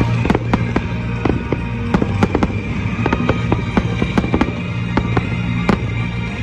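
Fireworks going off: a rapid, irregular string of sharp cracks and pops, several a second, over music with steady held tones.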